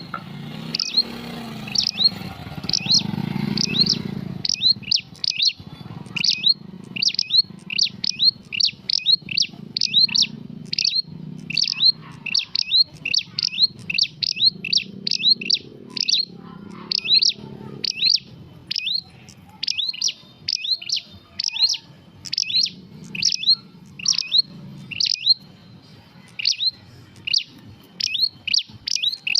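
Prenjak songbird calling: a long series of sharp, high chirps, about two a second, kept up without a break.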